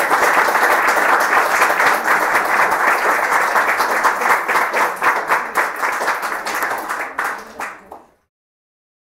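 Audience applauding, a dense patter of many hands that thins out and dies away about eight seconds in.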